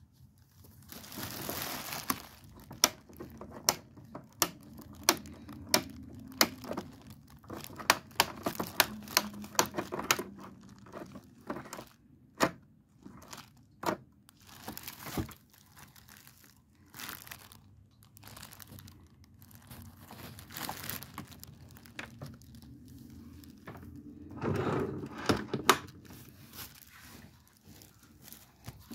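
Plastic wrapping crinkling and rustling as it is handled on a newly unboxed stand mixer and its stainless steel bowl, with many irregular sharp clicks and knocks. Louder bursts of rustling about a second in and again near the end.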